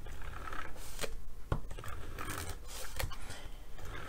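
Stampin' Seal tape runner drawn across the back of a sheet of paper in several short strokes, a rasping rattle of the dispenser with a few sharp clicks between strokes.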